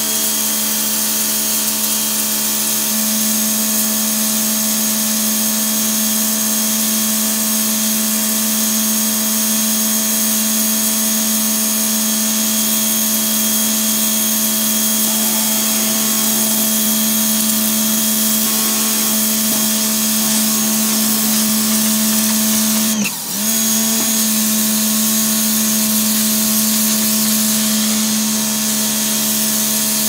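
WAP Eco Fit 2200 electric pressure washer running under load, its motor and pump humming steadily while the fan-nozzle jet hisses against the tiled floor. About three-quarters of the way through, the motor dips for a moment and picks straight back up.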